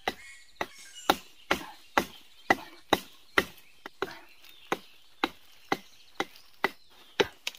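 A wooden digging stick jabbed again and again into the hard ground at a tree's roots: sharp, evenly spaced strikes, about two a second.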